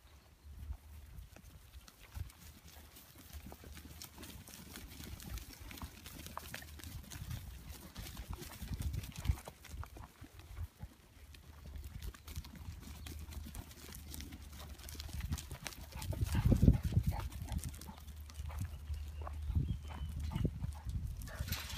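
A small flock of sheep trotting and scuffling across dry, dusty ground as a herding dog drives them, with many light hoof clicks and low rumbling bumps that grow louder in the last few seconds.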